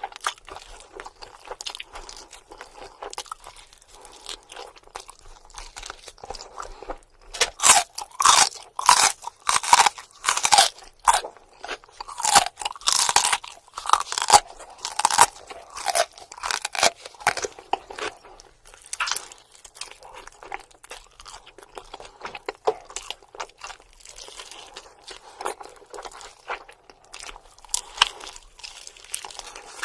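Close-up eating of fried buffalo chicken wings: crispy skin crunching under the bites, with wet chewing in between. The crunches are loudest and come thick and fast from about seven seconds in to just under twenty, and the quieter chewing goes on around them.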